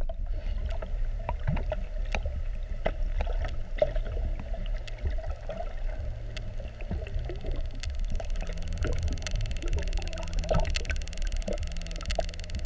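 Underwater sound picked up by a submerged camera: a steady muffled low rumble with scattered clicks and crackles, joined about eight seconds in by a faint steady low hum.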